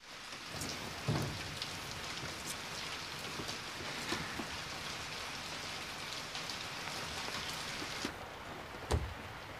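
Steady rain falling, an even hiss full of small drop patters. The hiss thins about eight seconds in, and a low thump comes just after.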